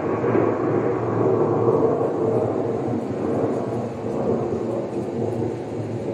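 Recorded thunder sound effect played back: a long rolling rumble of thunder that slowly dies away.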